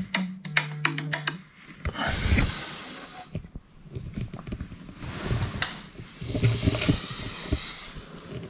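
Smartphone alarm ringtone, a rapid ticking rhythm over steady low notes, stops about a second and a half in. Bedding rustles and a person breathes heavily as they stir in bed.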